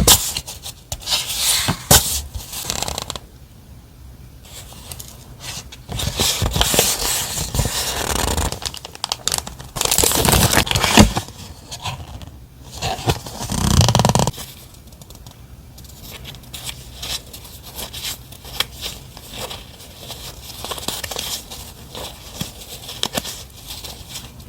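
Stationery and its paper and plastic packaging handled close to the microphone: rustling, crinkling and scraping, louder for several seconds in the middle, then softer ticking and rustling.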